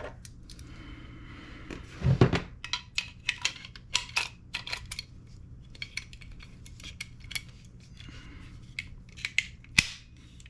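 Small metal airsoft gun parts, pins and trigger box pieces, being handled on a work surface: a string of light clicks and taps, with one heavier thump about two seconds in.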